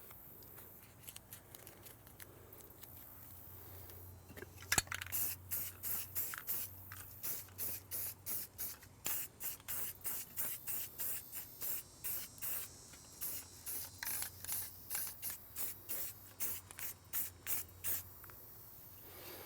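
Aerosol can of self-etching primer spraying in short repeated bursts, about two a second, after a click about five seconds in, as a light coat is put on.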